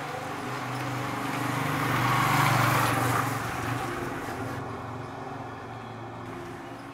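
A motor vehicle passing on the road, its noise swelling to a peak a couple of seconds in and then fading away, over a steady low engine hum.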